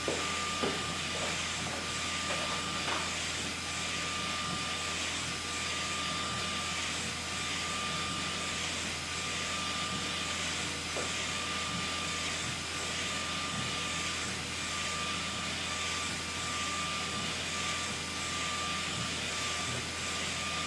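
SK UV6145 UV flatbed inkjet printer running while printing: a steady hiss with a constant high whine and a low hum, and a few faint clicks about a second in.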